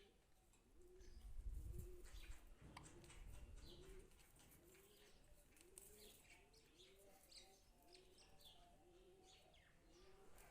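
Faint cooing of a pigeon, one low arched note repeating steadily about every half second, with scattered high bird chirps. A low rumble rises about a second in and fades by about four seconds.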